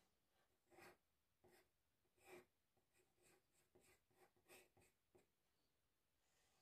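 Faint pencil strokes on drawing paper as a portrait outline is quickly sketched: a series of short, irregular strokes.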